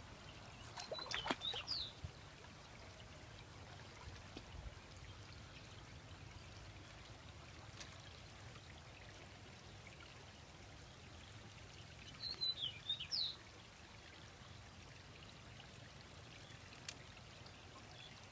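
Faint steady trickling of shallow water at a bamboo fish-trap fence. A bird gives two brief bursts of high chirps, about a second in and again about twelve seconds in.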